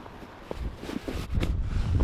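Wind buffeting the microphone, a gusty low rumble with a few short knocks.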